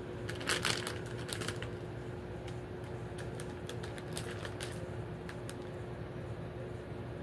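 Cellophane wrappers on popcorn balls crinkling and crackling as a hand presses and handles them. There is a dense burst of crackles right at the start, then scattered single crinkles for a few seconds, over a steady faint hum.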